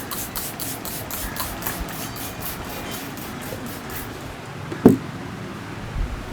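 Rhythmic slapping strokes of a massage by hand, about three a second, that fade out around four seconds in. A single sharp thump follows shortly before five seconds. A low street-traffic hum runs underneath.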